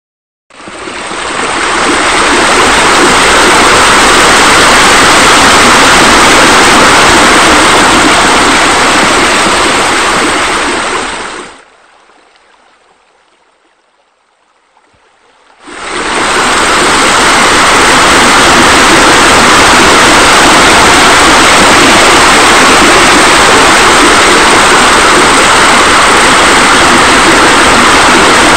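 Steady, loud rushing of running water, like a spa spilling over into a pool. It fades in near the start, drops to a faint hush for about four seconds around the middle, then comes back at full level.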